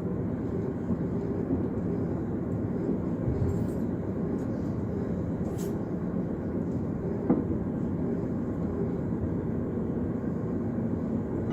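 Steady rumble of an electric S-Bahn train running, heard from inside the passenger compartment, with a single sharp click about seven seconds in.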